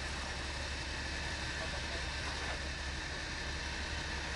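Hitachi excavator's diesel engine running steadily, a constant low hum under an even mechanical hiss.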